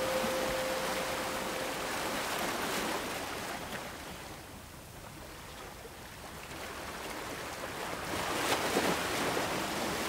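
Ocean waves washing in, a steady rush that eases about halfway through and builds again towards the end. A held chime note fades out in the first two seconds.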